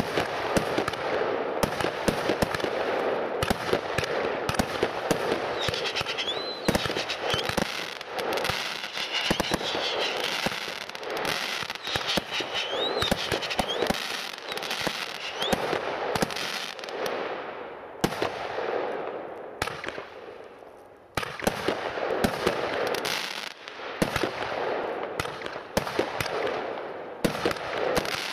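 Weco "Fire Combat" firework going off: continuous crackling and hissing packed with rapid sharp bangs, with a few brief whistling glides. It dies down about twenty seconds in, then starts again abruptly and carries on.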